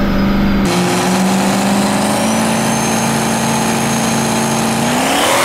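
Diesel drag-racing pickup engines running at the starting line, a steady note with a thin high whine over it. Near the end the engine pitch climbs as a truck revs up for the launch.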